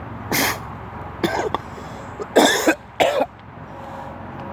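A man coughing four times in short, harsh bursts over a steady low background hum.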